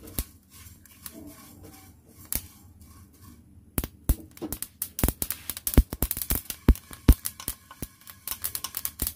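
A spatula stirs and scrapes dry-roasted flax seeds, cumin and ajwain in a non-stick pan. From about four seconds in comes a dense run of sharp clicks and rattles as the seeds are scraped out and tipped into a steel plate.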